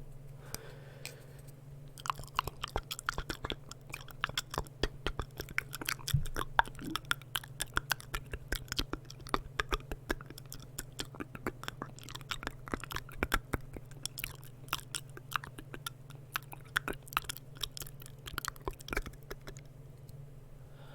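Close-miked ASMR mouth sounds: rapid, irregular wet clicks and smacks of lips and tongue, over a steady low hum.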